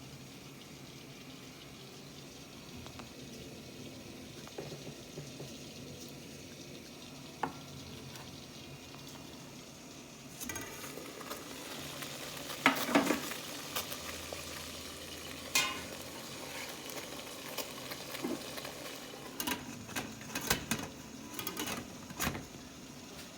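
Kitchen work sounds: a steady hiss that starts about ten seconds in, with dishes and utensils clinking and knocking in the second half, the loudest clinks near the middle.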